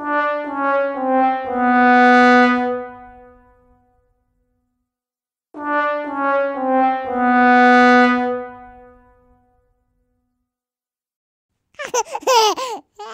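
Brass "sad trombone" sound effect, played twice: three short notes stepping down, then a longer, lower held note that fades. Near the end comes a brief, high, wavering vocal squeal.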